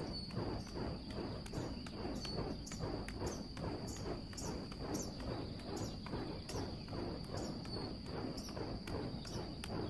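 Three flaming juggling torches whooshing through the air and being caught in the hands, in a regular rhythm of about two to three a second. A steady high-pitched insect trill runs underneath.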